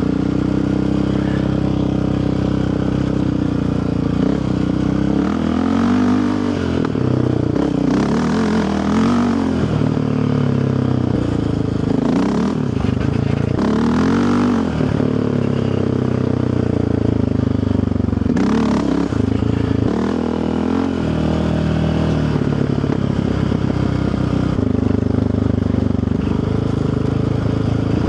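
Yamaha Raptor 700R's single-cylinder four-stroke engine running under way, its revs rising and falling several times. There are a few knocks and clatters from the rough trail.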